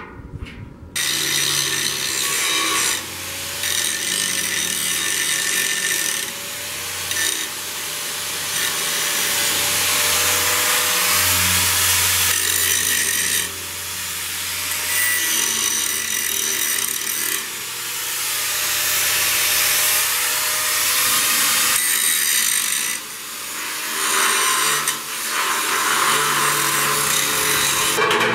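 Corded angle grinder grinding on a welded steel cooking-grate frame, starting about a second in and pausing briefly several times between passes.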